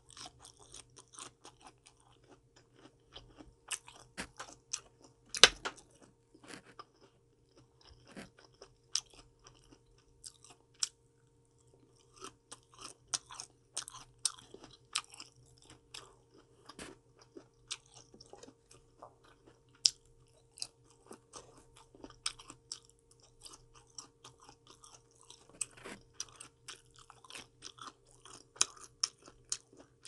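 Close-up chewing of raw salad vegetables and fruit: irregular, crisp crunches all through, with a sharp loud crack about five seconds in.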